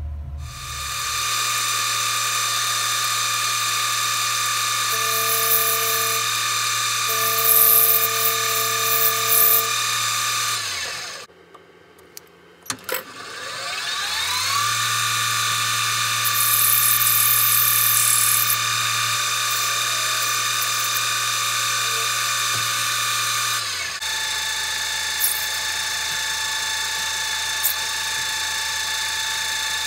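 Small metal lathe turning brass bar stock: a steady motor and spindle whine, with the hiss of the tool cutting the brass coming and going. About eleven seconds in it winds down and stops. Two seconds later it spins back up and runs on, settling to a slightly different pitch near the end.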